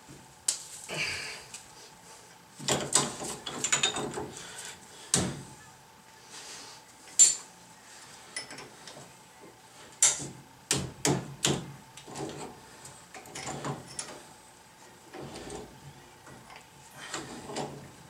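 Hand tools, a ratchet and wrench, working on the steel front spindle and brake parts of a Datsun pickup: irregular metallic clicks and clanks in scattered clusters, with quick runs of clicking, the loudest a sharp clank about seven seconds in.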